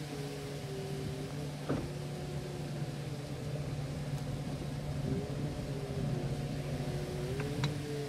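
Boat motor running with a steady low hum and a higher whine that slowly rises and falls in pitch. A sharp knock comes a little under two seconds in, and two small clicks near the end.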